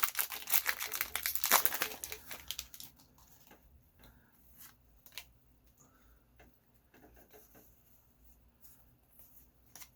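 Foil Pokémon booster pack wrapper crinkling and tearing open for about the first three seconds, followed by faint soft clicks of the trading cards being handled.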